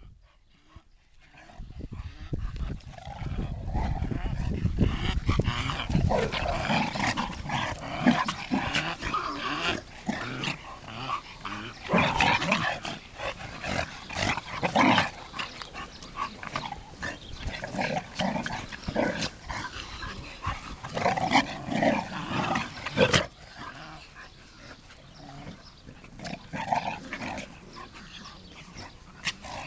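Several dogs playing rough together, growling and yapping in short bursts, quieter over the last few seconds.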